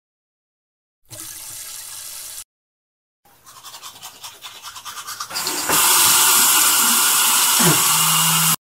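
A short hiss about a second in, then a toothbrush scrubbing teeth in quick rhythmic strokes. A tap follows, running loudly into the sink basin, and it cuts off suddenly near the end.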